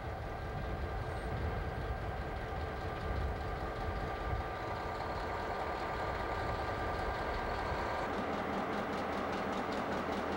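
A steady low rumble for the first several seconds. About eight seconds in, this gives way to an EMD GP9 diesel-electric locomotive idling, its two-stroke diesel giving a fast, even beat.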